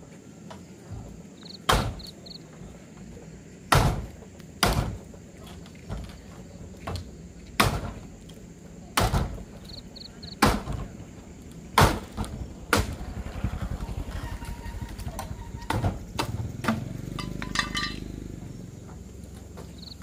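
An unevenly spaced series of about a dozen sharp blows, one to two seconds apart, in the manner of chopping or hammering. A few faint high chirps come in between, and a steadier rushing noise with a low rumble rises in the second half.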